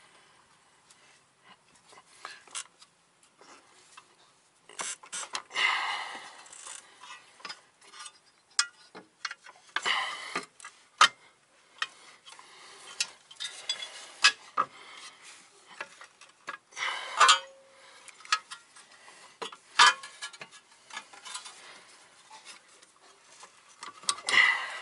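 Irregular metal clicks, clinks and scrapes of a wrench and steel suspension parts as a car's lower ball joint is worked into its spindle, with louder clanks every few seconds.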